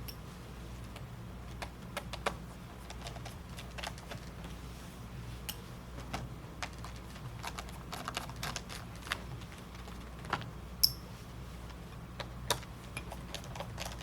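Irregular light clicks and taps of a screwdriver and small screws being worked out of a Dell 3120 laptop's screen frame, with a sharper click just before 11 seconds in, over a faint steady low hum.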